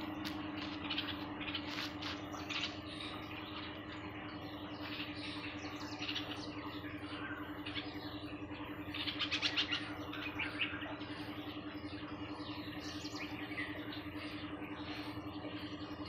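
Birds chirping in the background, with a louder spell of chirping about nine seconds in, over a steady low hum.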